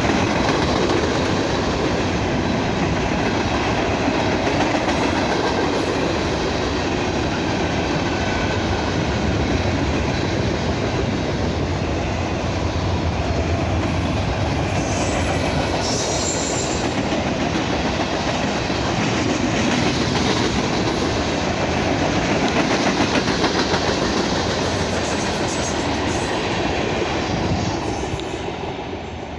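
Train cars rolling steadily past, their wheels clicking over the rail joints, fading away near the end.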